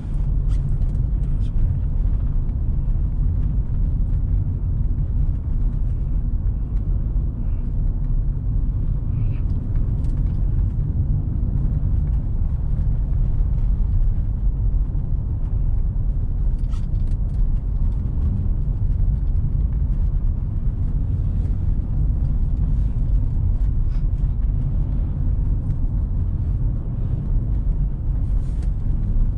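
Car driving on a snow-covered road: a steady low rumble of tyres and engine, with a few faint ticks.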